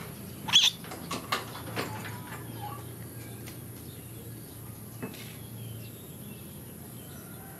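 Baby macaques give a sharp, high squeak about half a second in, then a few fainter short chirps and clicks. After that there is only a faint low background hum.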